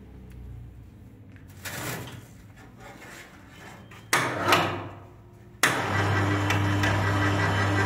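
Electric drive motor of a profile pipe bender starting abruptly about four seconds in, running briefly, then starting again and running steadily with a low hum as it turns the rollers through a chain drive. A short clatter comes about two seconds in.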